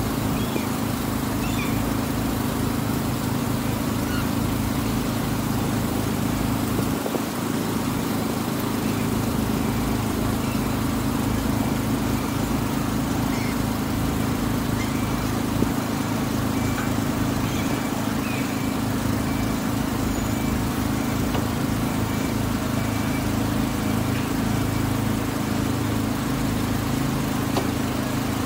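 Engine of the wooden waterbus Tuula II running steadily underway, a constant low drone.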